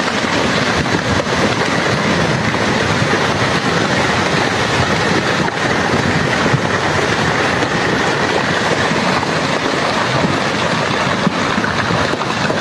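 Landslide debris, rocks and earth sliding down a slope, making a loud, continuous rumbling and clattering that never lets up.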